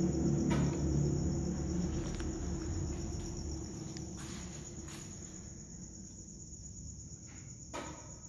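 Crickets chirring in a steady, high-pitched drone, with a low rumble fading out over the first few seconds and a few faint knocks.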